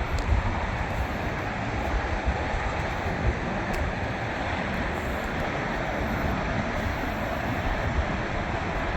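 Steady rushing roar of nearby freeway traffic, with wind buffeting the microphone.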